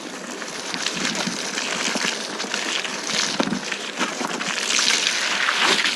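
Muddy water splashing and sloshing on a flooded trail, an uneven run of wet crackles.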